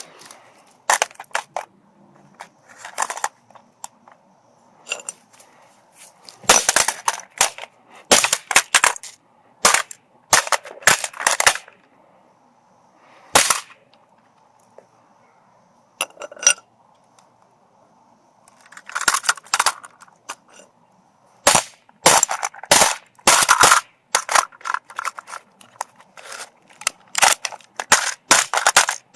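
Hammer blows smashing a cheap alarm clock: sharp cracking hits, some single and some in quick runs, with short pauses between. The strikes come thick and fast in the last several seconds.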